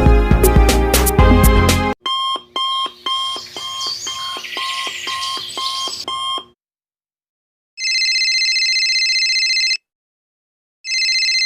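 Sound-effect clips in sequence: a burst of music cuts off about two seconds in, then quick repeated electronic beeps, then an electronic alarm clock ringing in two bursts of a couple of seconds each, with a short pause between them.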